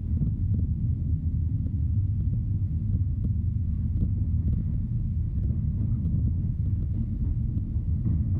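Steady low rumble of an ED4M electric multiple unit in motion, heard inside the passenger car, with faint small clicks and rattles.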